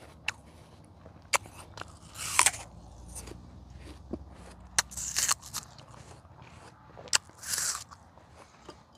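Close-up biting and chewing of a crisp, juicy Granny Smith apple: sharp crunches every second or few between wetter chewing sounds.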